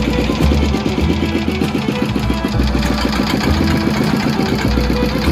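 Inboard engine of a small wooden fishing boat running steadily under way, with a rapid, even beat.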